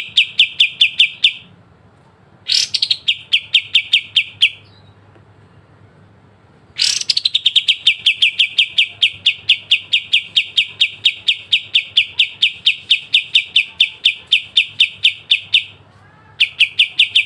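A kapas tembak songbird singing its sharp 'besetan' phrases: trains of rapid, evenly repeated clicking notes at about six a second, each phrase opening with a sharp rising note. A short phrase ends just after the start, another lasts about two seconds, a long one runs about nine seconds from the middle, and a new one begins near the end.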